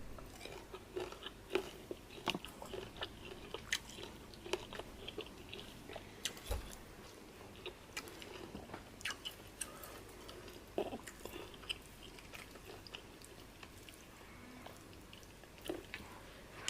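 Close-miked chewing and eating sounds of a man eating fufu and peanut soup with his hands: irregular soft smacks and clicks, busier in the first half.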